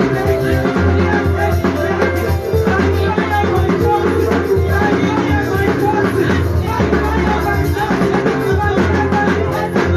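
Music with drums, a bass line and singing, steady and loud.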